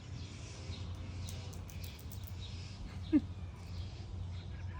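Wild birds chirping in the background over a steady low rumble, with one short, loud squeak about three seconds in.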